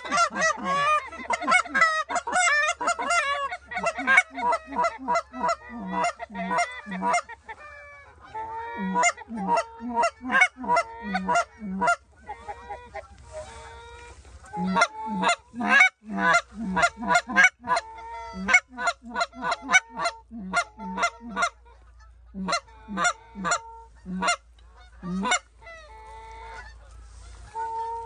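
Goose honking and clucking. Many calls overlap at first, then come in quick runs of short honks with brief gaps, thinning out toward the end.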